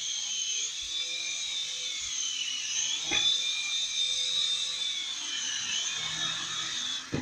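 Toy remote-control helicopter's small electric motor and rotor whining at a high pitch that drifts up and down as the throttle changes, with a brief knock about three seconds in. Near the end a sharp knock and the whine cuts off suddenly.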